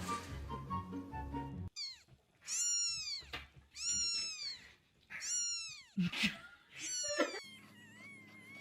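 A cat meowing four times in a row, each meow a drawn-out call that rises and then falls in pitch.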